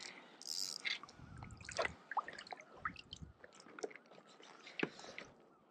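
Light, scattered clicks, taps and rustles of fishing tackle and hands as a small just-landed wrasse is swung in on the line and gripped.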